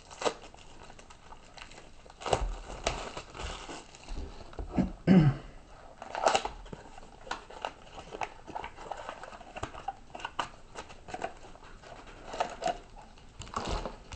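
Hands opening a cardboard trading-card mini box: wrapping crinkling and cardboard flaps tearing and rustling in irregular bursts, a few louder than the rest.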